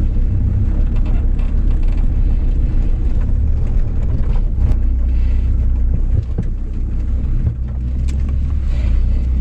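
Car engine and tyre rumble heard from inside the cabin while driving slowly, a steady low drone with a few faint knocks.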